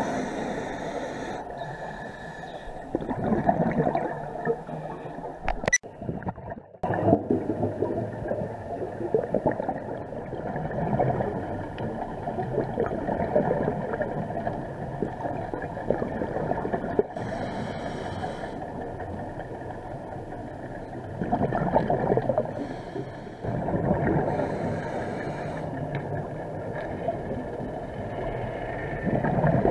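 Muffled underwater rushing picked up by a diver's camera, swelling in surges every few seconds as scuba exhaust bubbles stream out. The sound drops out briefly about six seconds in.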